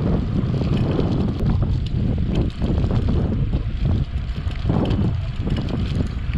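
Wind buffeting a chest-mounted action camera's microphone while riding a bicycle: a loud, low rumble that swells and dips unevenly.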